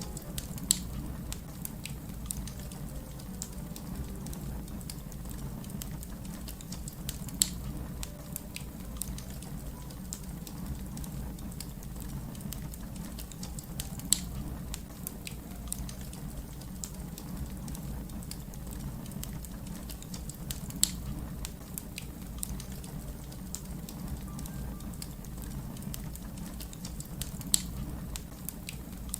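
Wood fire crackling: a steady low rumble of burning under a constant scatter of small crackles, with a louder sharp pop about every seven seconds.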